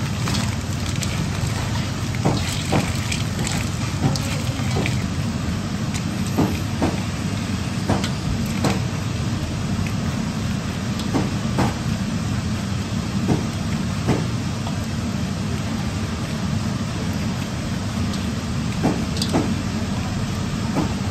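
Rubber-gloved hands kneading and slapping minced pork and water chestnut filling in a stainless steel bowl, with soft irregular squelches and knocks every second or so, over a steady low background hum.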